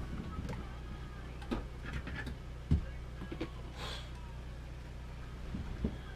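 A few dull thumps and knocks, the loudest about two and a half seconds in, with a brief rustle near four seconds, as a person moves about and handles gear inside a wooden ice-fishing house, over a steady low hum.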